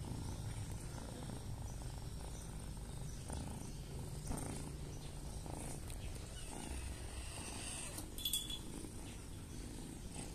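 Grey tabby kitten purring steadily while held and scratched under the chin. A brief high sound comes near the end.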